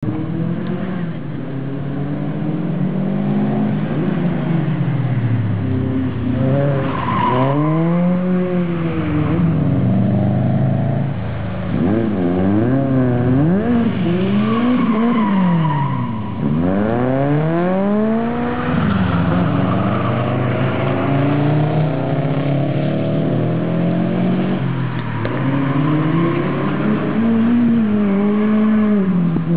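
Toyota AE86's four-cylinder engine breathing through a 4-into-1 OBX exhaust header, revved over and over. Its pitch climbs and drops in quick blips and longer sweeps, and it idles lower in between.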